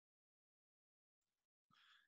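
Near silence; a faint noise comes in near the end.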